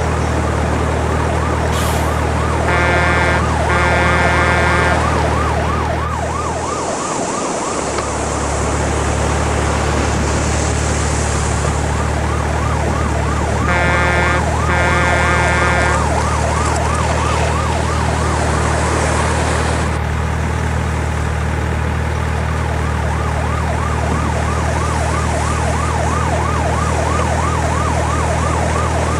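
Vehicle sounds: a fast warbling siren over a steady engine-like rumble, with two short honks of a horn twice, a few seconds in and again about halfway through. The rumble drops out briefly at about a quarter of the way through.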